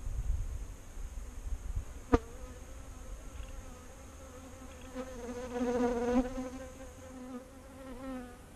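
Honeybees flying close past the microphone: a buzzing hum that comes and goes, loudest a little past halfway. There is a single sharp click about two seconds in, and wind rumbles on the microphone at the start.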